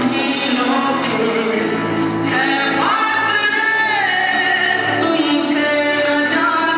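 Bollywood-style song with sung vocals. A long held vocal note slides up in pitch about two and a half seconds in.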